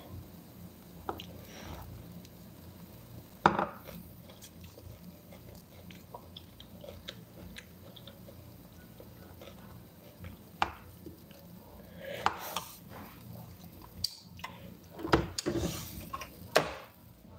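Chewing of fresh tomato and cucumber, with sharp clinks of a metal fork against the bowl now and then, the loudest about three and a half seconds in and several more near the end.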